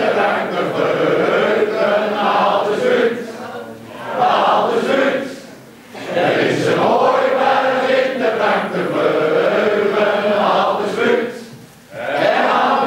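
A group of men and women singing a song together in the Huizen dialect, in long phrases with brief pauses between them.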